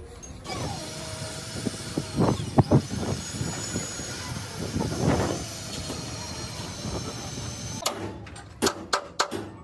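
A truck's engine running close by, with gliding whine tones and a few knocks. Near the end it gives way to quick, evenly repeated scraping strokes of hand work on the cabin's sheet-metal panel.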